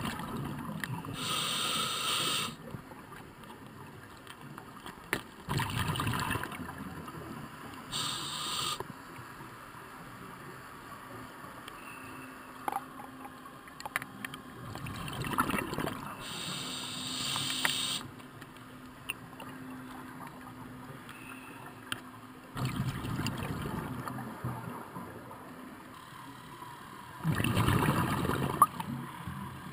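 Scuba diver breathing through a regulator, heard from inside the camera's underwater housing: a short hissing inhale, then a rumbling burst of exhaled bubbles, repeating about every seven seconds.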